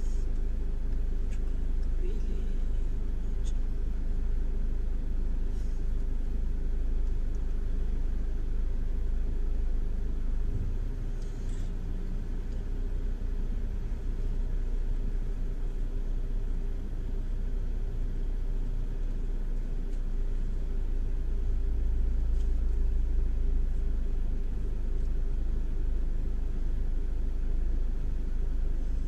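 Steady low rumble of a car's engine and road noise heard inside the cabin as the car idles and creeps forward in a slow queue.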